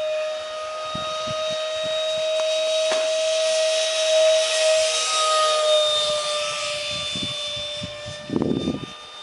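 Ducted fan of a scratch-built F-18 model jet whining steadily in flight, with a rushing air hiss that swells in the middle as it passes; the pitch dips slightly about six seconds in. A brief low buffeting comes near the end.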